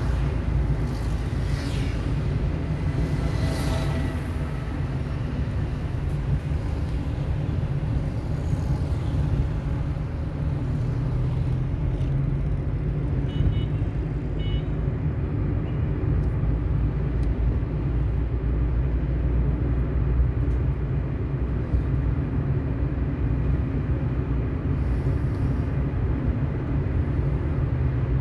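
Steady low rumble of a car driving along a city street: engine, tyre and wind noise, with light surrounding traffic.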